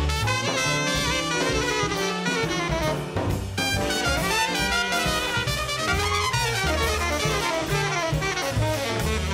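A jazz sextet playing live: trumpet and saxophone play a horn line together over double bass and drums.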